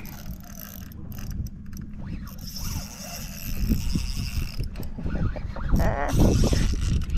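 Shimano Vanford 2000 spinning reel running as line is worked, over a constant low rumble of wind on the microphone.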